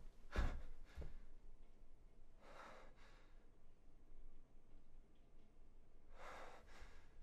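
A person's heavy, shaken breathing: two sharp intakes in the first second, then two long breaths about two and a half and six seconds in.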